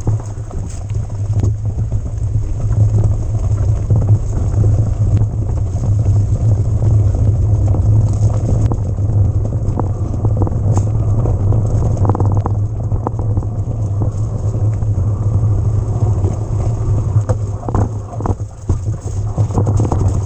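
Haibike XDURO AllMtn 2.0 electric mountain bike ridden over rough ground: a steady low rumble from the ride, with frequent knocks and rattles from the bike.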